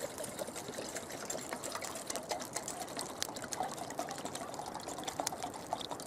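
Water poured from a bottle into a camping pot to be boiled: a steady trickling pour.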